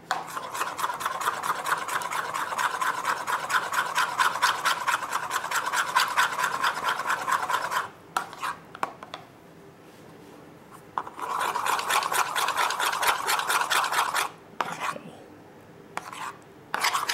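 Metal spoon briskly stirring a creamy conditioner-and-olive-oil hair mix in a plastic bowl: rapid, even scraping strokes against the bowl. The stirring stops for a few seconds about eight seconds in, then starts again briefly.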